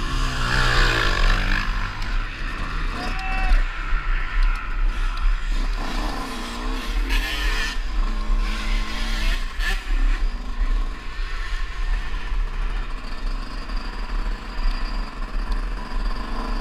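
Yamaha YZ125 125cc single-cylinder two-stroke motocross engine revving up and down as the bike is ridden, heard through a helmet-mounted camera with heavy wind rumble on the microphone.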